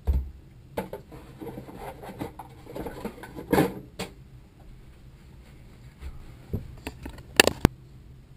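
Tools and metal parts being handled on a workbench: scattered knocks, clinks and rustling, a louder clatter about three and a half seconds in, and a couple of sharp clicks near the end.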